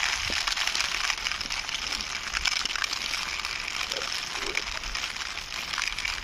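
Plastic wheels of a toy jeep rolling and scraping over rough concrete as it is pushed by hand: a continuous gritty crackle.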